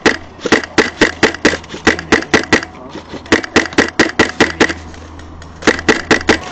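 Airsoft gun firing rapid strings of shots, about seven a second, in three bursts separated by short pauses, over a steady low hum.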